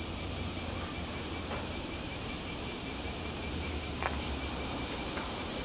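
Steady outdoor background hum and hiss with a faint, even high-pitched insect buzz, broken by a few light clicks.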